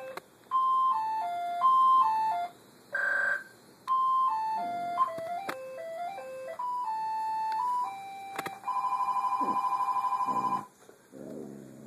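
Mobile phone ringtone playing a beeping melody of stepping tones, then a steady pulsing alarm tone for about two seconds near the end. A dog howls along in low rising and falling wails, about halfway through and again at the end.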